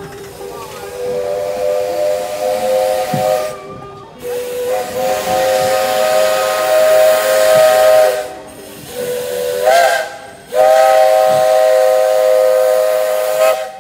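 Steam locomotive's chime whistle, Jeddo Coal Co. 85's, blowing several tones at once over a hiss of steam. It sounds four blasts, long, long, short, long: the standard signal for approaching a road crossing.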